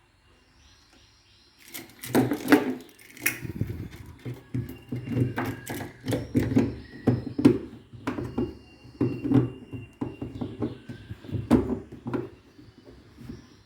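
Irregular knocking and clattering of hard objects being handled, a sharp knock or two a second, starting about two seconds in and easing off near the end.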